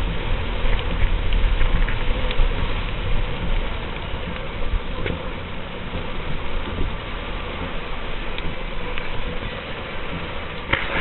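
Steady low rumble of a moving road vehicle heard from inside the cabin, with scattered ticks of heavy rain striking the body and windows.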